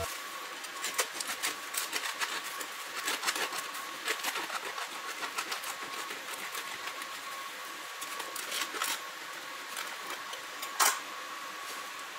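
A knife sawing lengthwise through a crusty French baguette, the crust crackling in quick, irregular clicks, with one sharp crack near the end.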